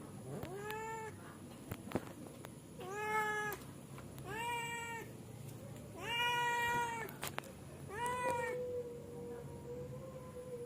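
Cat meowing repeatedly: five drawn-out meows about a second and a half apart, the fourth the longest and loudest, with a few faint clicks between them.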